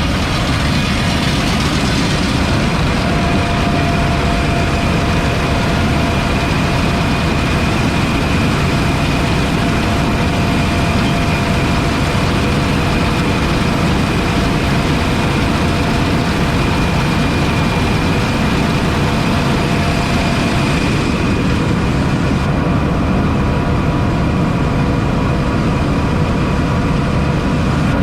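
Heavy diesel farm machinery engine running steadily at working speed, with thin steady whining tones over the engine drone that fade about three quarters of the way through.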